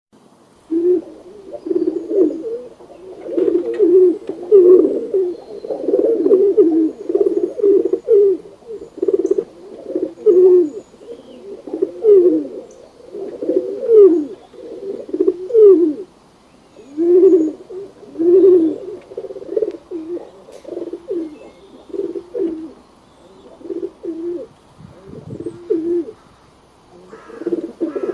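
Pigeons cooing, many low coos overlapping and repeating, thickest in the first half and thinning out later.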